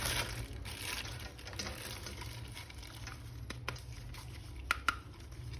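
Soft splashing and dribbling of water while a plastic action figure is washed by hand, with a few small sharp plastic clicks.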